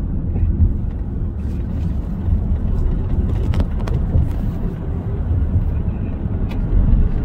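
Steady low road and engine rumble heard from inside a moving car, with a few light clicks near the middle.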